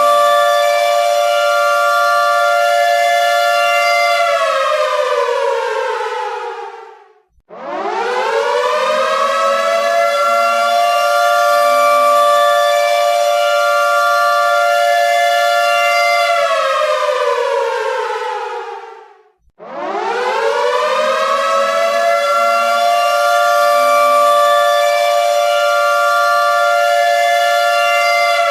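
Air raid siren wailing in a slow cycle: a steady high tone of two notes together, then a long fall in pitch to a brief silence, then a rising wind-up back to the steady tone. The cycle repeats about every twelve seconds.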